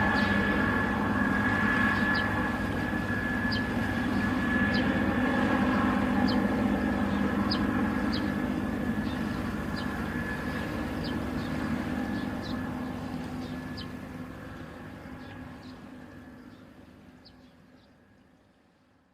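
Helicopter running steadily, a droning hum with a high whine and faint regular ticks, fading out to silence over the last few seconds.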